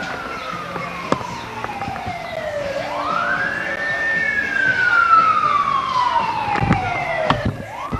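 Emergency-vehicle siren wailing in slow sweeps: its pitch falls, climbs quickly about three seconds in, falls slowly again, and starts another climb near the end. A few light knocks sound under it.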